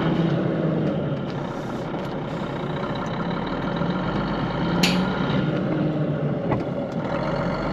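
Cummins M11 diesel engine of an ERF EC11 lorry running steadily, with one short sharp sound about five seconds in.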